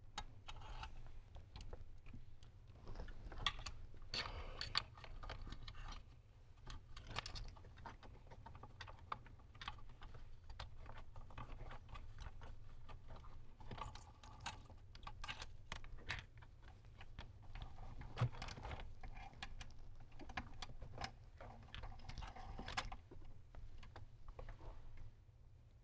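Hands routing and fitting a car-audio wiring harness behind the dash trim: scattered light clicks and rustles of wire and plastic connectors at irregular intervals, over a faint steady low hum.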